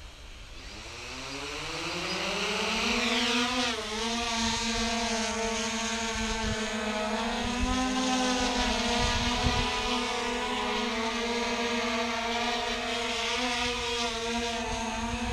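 Hubsan X4 quadcopter's motors spinning up with a rising whine as it lifts off, then settling into a steady propeller buzz as it hovers, with small wavers in pitch as it holds position.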